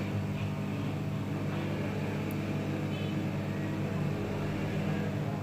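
Hot air rework station running with a steady blower hum while it heats a phone's charging port to desolder it from the circuit board.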